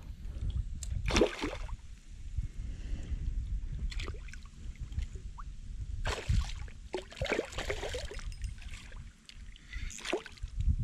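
Hooked pike thrashing and splashing at the water's surface on the line beside the boat, in several short bursts, over a steady low rumble.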